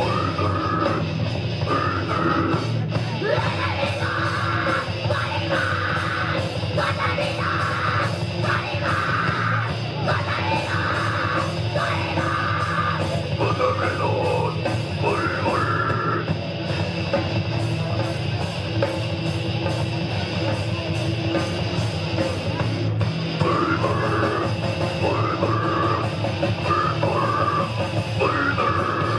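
A death metal band playing live: distorted electric guitars, bass and drums in one dense, unbroken wall of sound.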